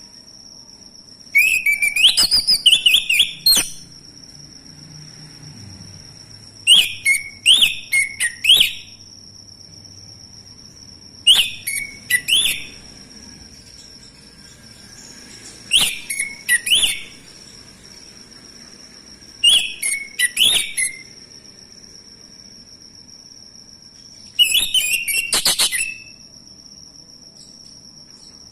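Male orange-headed thrush (anis merah) singing six separate loud phrases of quick, rising and falling whistled notes, one every four seconds or so. A steady, thin, high-pitched tone runs underneath.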